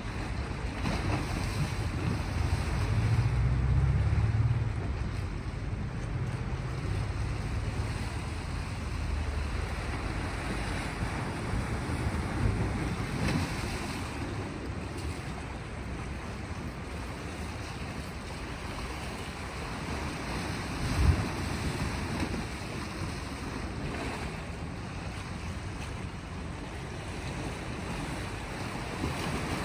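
Small sea waves washing against shore rocks in a steady wash. Wind buffets the microphone with low rumbles, strongest in the first few seconds, and there is one brief thump about two-thirds of the way through.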